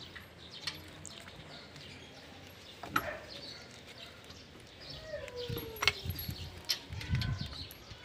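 A few sharp clicks, about a second in, at three seconds and near six seconds, as a lug nut is handled and threaded by hand onto a wheel stud of the spare wheel, with low rubbing and handling noise near the end.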